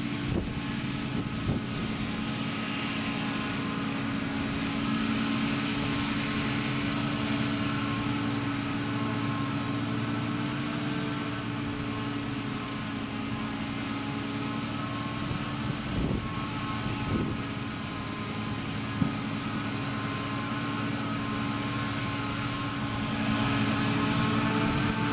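Heavy diesel farm machinery running steadily at a constant engine speed, a drone that holds one pitch, with a couple of brief knocks about two-thirds of the way through; it gets a little louder near the end.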